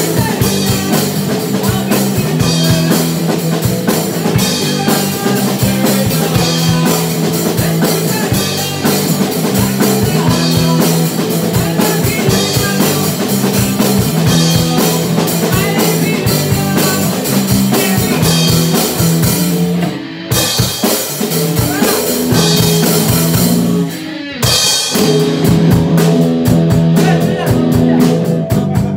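Live rock band playing full-out: electric guitars and a drum kit keeping a steady beat, with two short breaks in the playing about twenty and twenty-four seconds in.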